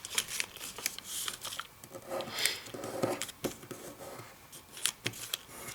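A sheet of origami paper being handled and folded: light rustling with short, sharp creasing clicks and crinkles at uneven intervals.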